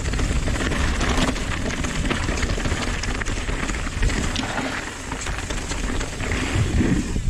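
Nukeproof Dissent 290RS downhill mountain bike descending a dirt and gravel trail: tyres crunching over loose dirt and stones, with the bike rattling and clattering over the bumps.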